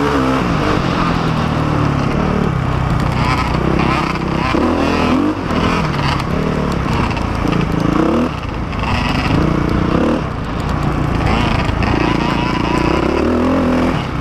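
Dirt bike engine heard from on the bike while riding a trail, its pitch rising and falling as the throttle opens and closes, with brief drops in level a few times.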